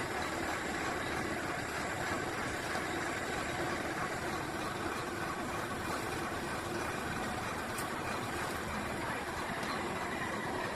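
An engine running steadily at an even speed, a constant hum with no revving.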